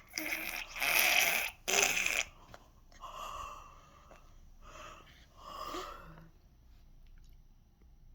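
A person making funny noises with the mouth and breath: a few loud, breathy blasts in the first two seconds, then softer voiced grunting sounds between about three and six seconds in.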